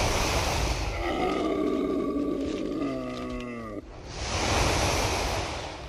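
Dragon roar sound effect: a rushing, breathy roar, then a pitched growling cry that slides down in pitch about three seconds in, then another rushing roar that swells and fades.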